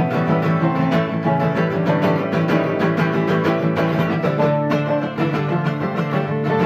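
Instrumental break in a live country-bluegrass song: strummed acoustic guitar with picked string notes, no singing.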